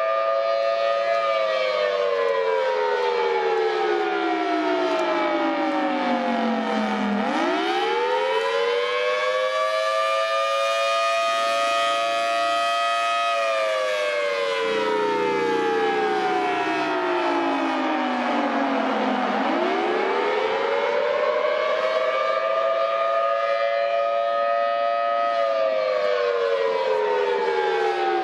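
RE-1000 warning siren sounding a wail on test, in two close tones. The pitch slides slowly down, sweeps quickly back up twice, and holds high for several seconds each time before falling again.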